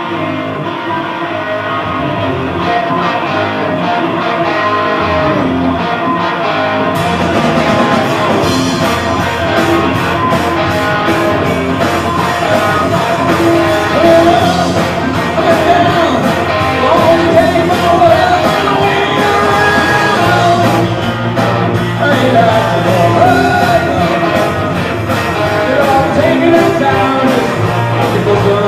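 Live rock band playing loudly: electric guitar and singing, with the drums and cymbals coming in about seven seconds in and keeping a steady beat.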